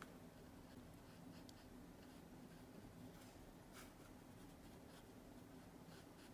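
Faint strokes of a small paintbrush dabbing watercolour onto paper, a few soft short brushings over a low steady hum.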